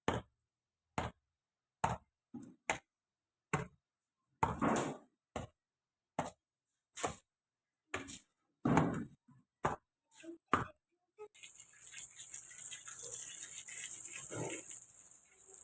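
Brick flooring work: short knocks and a few longer scrapes, roughly one a second, then from about eleven seconds in a steady hiss with faint handling sounds.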